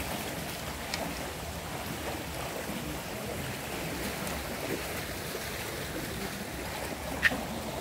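Steady rushing of river water, with faint distant voices underneath and one sharp click near the end.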